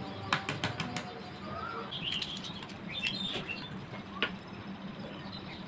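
Hard-boiled eggs being peeled by hand: a run of sharp clicks and crackles of breaking shell, then a single click of an egg set down on a steel plate a little after four seconds in.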